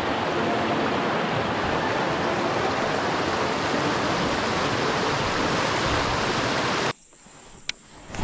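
River water rushing over a rocky shoal: a steady, even rush. It cuts off abruptly near the end, leaving quiet with a single faint click.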